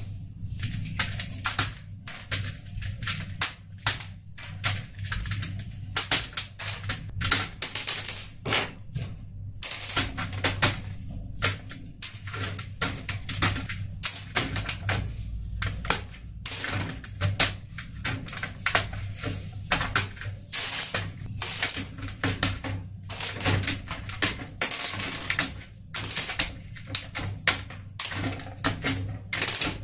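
Plastic keycaps being pulled off a Razer Cyclosa membrane keyboard by hand: a dense, irregular run of sharp plastic clicks and light clatter as the caps snap free and are dropped onto a pile of loose keycaps.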